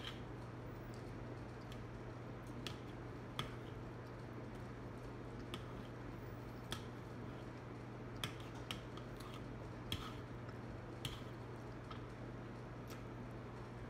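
A metal fork clicking against a plate now and then, a dozen or so sharp irregular clicks, as noodles are picked up and eaten, over a steady low hum.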